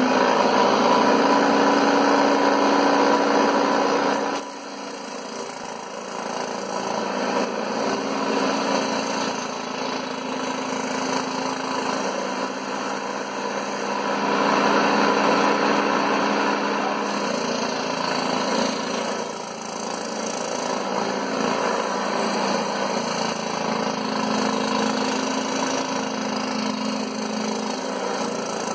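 Scroll saw running with a steady motor hum and the rasp of its reciprocating blade cutting through MDF board. It is loudest for about the first four seconds, then drops suddenly, and its level rises and falls as the work is fed through the blade.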